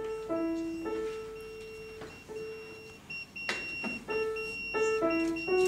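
Grand piano playing a slow melody of held notes, one or two at a time.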